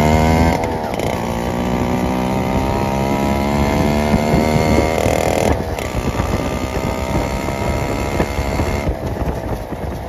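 Yamaha RX two-stroke single-cylinder motorcycle exhaust, heard close to its chrome silencer while riding at a steady speed. The engine note holds a steady pitch, and after about five seconds it sinks partly under a steady rushing noise.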